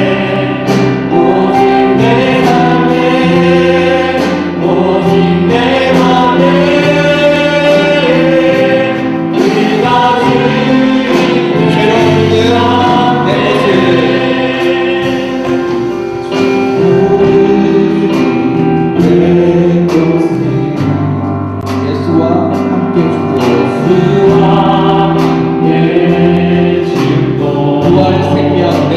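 Church choir singing a gospel hymn, held sung notes moving in harmony over a steady beat.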